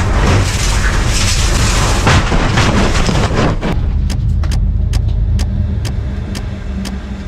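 Electric race car at speed, a loud rushing noise of road and wind. About three and a half seconds in it drops to a lower steady hum, with sharp ticks about twice a second.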